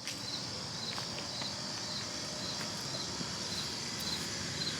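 Outdoor insect chorus: a steady high hiss of insects, with a short high chirp repeating evenly about twice a second, and a few faint ticks.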